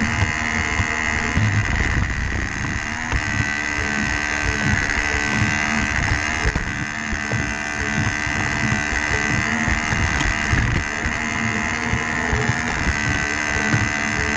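Battery-powered Lego Duplo train's small electric motor running with a steady whine, with irregular clicking and rattling from the wheels over the plastic track.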